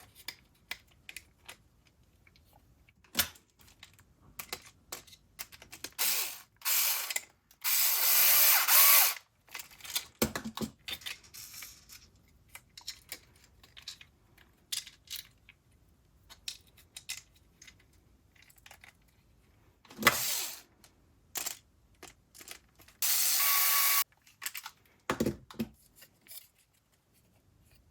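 A small power screwdriver drives screws into 3D-printed plastic parts in several short runs of about a second each. Between the runs come clicks and light knocks as the plastic parts are handled.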